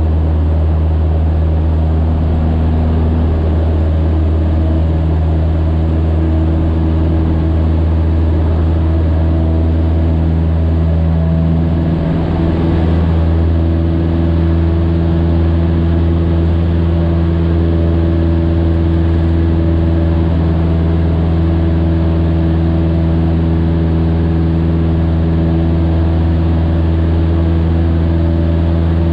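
Cessna 152's four-cylinder Lycoming O-235 engine and propeller at full takeoff power, heard from inside the cockpit. It gives a loud, steady, deep drone through the takeoff roll, rotation and initial climb, with a brief dip about twelve seconds in.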